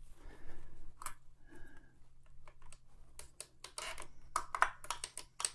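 Light, irregular clicking and ticking of a Singer 401A sewing machine's internal stitch mechanism being worked by hand, its cams, fingers and rods freshly oiled; the clicks come thicker and faster in the second half.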